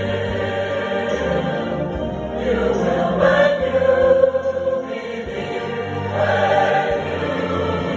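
Choir singing in long held phrases, the voices swelling louder around the middle and again near the end.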